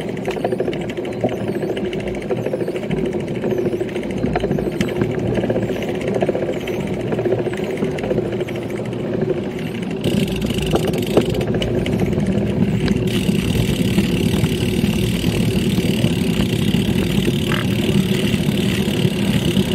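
Steady road traffic from passing cars and a van, getting louder and brighter from about ten seconds in, heard from a slowly ridden bicycle.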